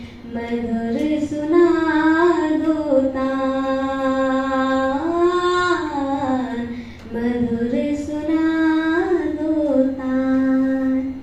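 A young female voice singing a Hindi devotional bhajan unaccompanied into a microphone, in long held notes with slow glides between pitches and brief breaths between phrases.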